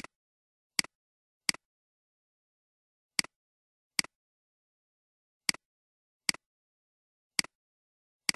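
Computer mouse clicks, about nine sharp double ticks (press and release) at uneven intervals, with silence between them.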